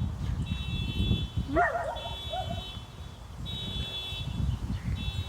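A pet animal's short, high yipping calls, a quick run of them about one and a half seconds in, over low rumbling, with a high steady tone coming and going.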